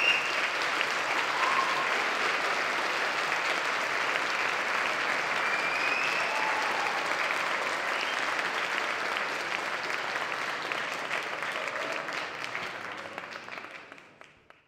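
Audience applauding steadily for a school concert band, fading out over the last couple of seconds.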